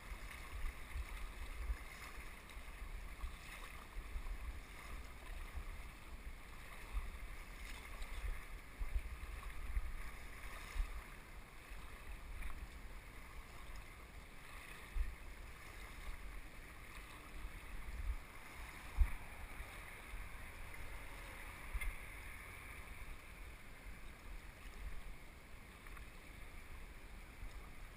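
Shallow river running over a stony bed, a steady rushing wash. A low rumble of wind on the microphone runs under it, with a few brief louder spikes.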